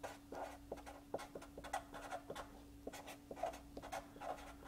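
Marker pen scratching across paper on a drafting board in many short, irregular strokes, with small taps of the pen tip. A faint steady hum lies underneath.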